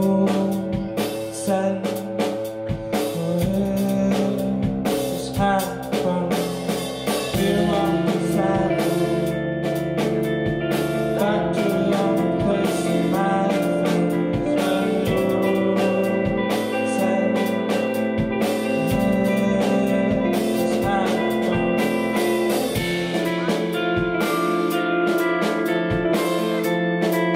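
A live band playing a song on electric guitar, bass guitar, keyboard and drum kit, with a steady beat.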